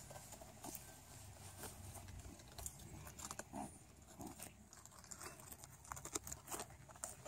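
Dwarf rabbits gnawing at a head of cabbage: faint, irregular crisp bites and tearing of leaves, many small crunches a second.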